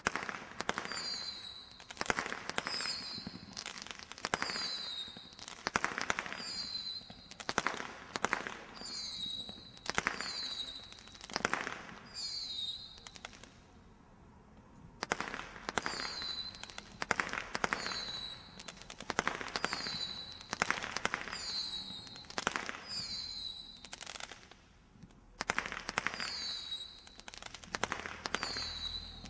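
Air-Strike 144-shot Category 2 combination Roman candle firing in a rapid series of sharp pops, a few a second, each shot followed by a short high falling whistle. The sequence has two brief lulls, one about halfway through and one a few seconds before the end.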